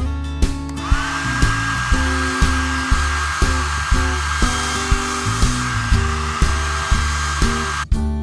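A small electric appliance's motor whirring: it spins up about a second in, holds a steady high whine and cuts off suddenly near the end. Background music with a steady beat plays under it.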